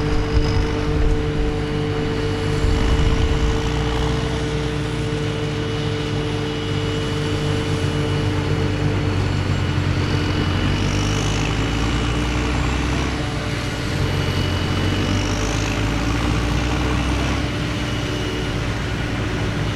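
Large diesel farm machinery at work during a maize silage harvest, running steadily with a constant whine over the engine noise.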